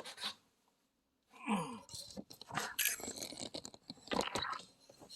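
Rustling, scraping and a string of sharp clicks as a person handles equipment and moves across the room, with a short rising creak about a second and a half in.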